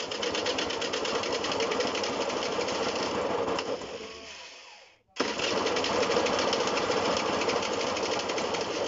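Honda SH50 scooter's small two-stroke engine running fast and high-revving, dying away about four seconds in, then catching again about five seconds in and running until it cuts out near the end. It won't settle to an idle, which the owner thinks is fuel starvation or a carburettor that needs cleaning.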